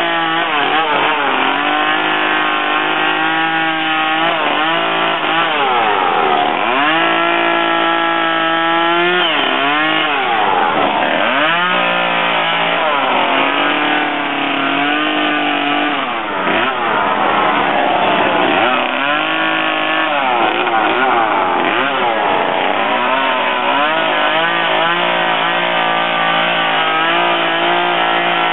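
Chainsaw running throughout, its engine pitch repeatedly revving up and dropping back as it cuts into wood.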